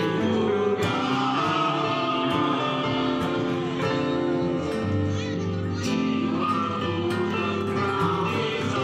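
Live band music with a group of voices singing together in chorus, continuous throughout.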